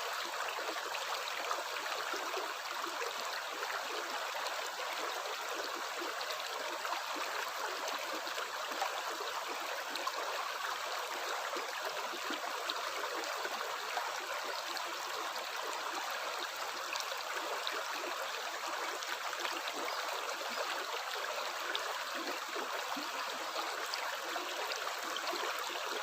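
Running water flowing steadily: a continuous even rush with fine bubbling and splashing throughout.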